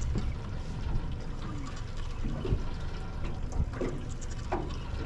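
Water lapping against a boat's hull over a steady low rumble, with a few light knocks about two and a half to four and a half seconds in.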